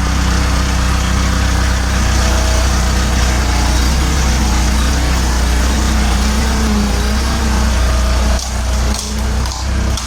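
A vehicle's engine running steadily, a deep even hum, with a few brief drops in level near the end.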